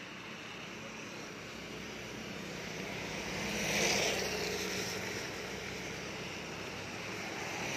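A motor vehicle passing on a wet road: engine hum and tyre hiss swell to a peak about halfway through, then fade, over a steady background hiss of wet street traffic.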